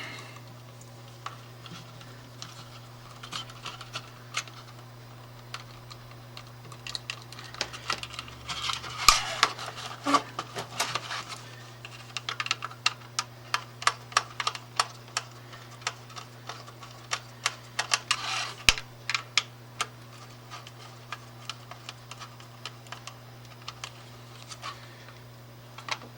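Irregular small clicks and rattles of hand work on electrical wiring as two black wires are joined together, busiest in the middle and thinning out near the end, over a steady low hum.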